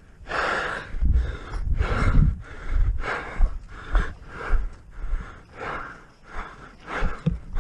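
A person breathing hard and fast, out of breath, at about two breaths a second, with low thumps underneath.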